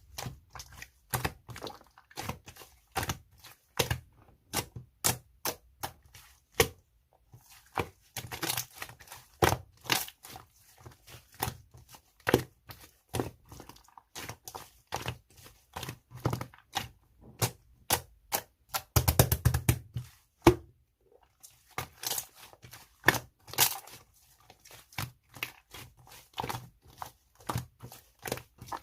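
Slime being squeezed, stretched and pressed by hand, giving a fast, irregular run of sharp clicks and pops from trapped air bubbles, with a denser burst of squelching about two-thirds of the way through.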